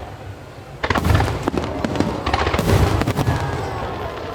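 Fireworks going off: a volley of booms and crackles about a second in, then another volley around two and a half seconds, each fading out in a rumbling echo.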